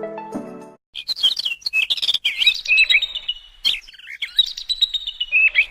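Birds chirping and tweeting in quick, busy runs of short calls. A piano note fades out at the start.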